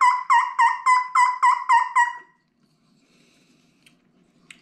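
Beaver Creek straight-cut diaphragm turkey call blown in a fast run of yelps, about four a second, each note breaking and dropping in pitch. The calling stops about two seconds in, followed by a faint click or two.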